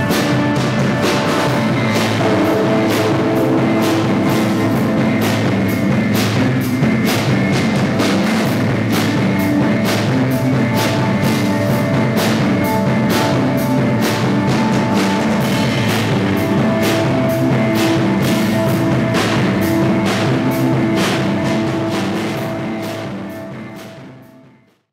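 Live rock band playing, with a steady drum-kit beat under long held synthesizer or keyboard tones and guitar. The music fades out near the end.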